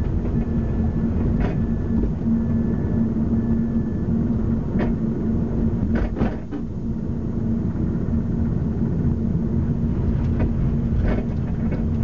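2005 Mazda 3 rear suspension clunking over bumps, heard from inside the trunk under steady road rumble: several sharp knocks, three in quick succession about six seconds in and more near the end. The clunk seems to come mostly from the driver's side rear, cause not yet diagnosed.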